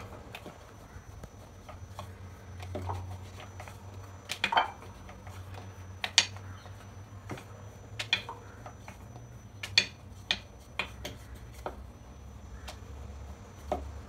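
Wooden rolling pin rolling and knocking on a wooden board as puri dough is rolled out: irregular light clicks and knocks, the loudest about four and a half and six seconds in, over a low steady hum.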